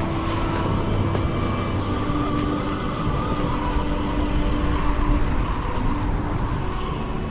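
Blizzard wind blowing hard: a steady deep rumble with a thin, wavering whistle over it.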